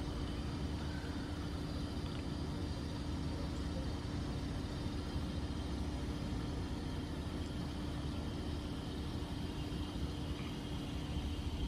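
A vehicle engine idling: a steady low rumble with a constant hum.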